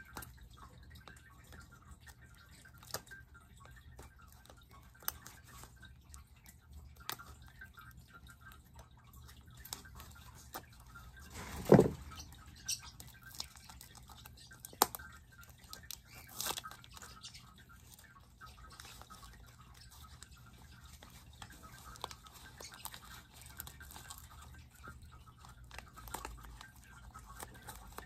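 Plastic and paper packaging being cut open with a knife and handled: scattered soft crinkles, clicks and scrapes, with one louder thump about twelve seconds in.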